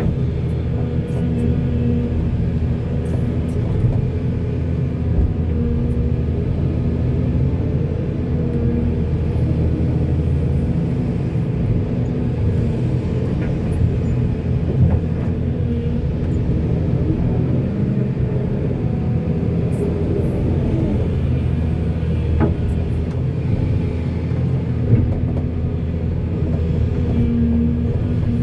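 Diesel engines of a backhoe and a dump truck running steadily, swelling now and then as the engine speed changes, with a few short knocks.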